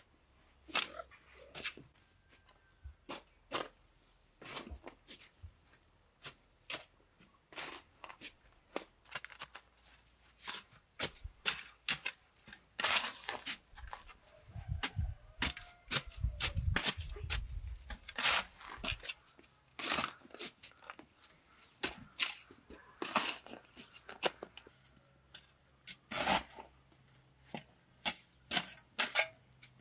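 A spade digging into grassy soil and turning it over: a string of short, sharp scrapes and clod impacts at uneven intervals, with a few heavier thuds about halfway through.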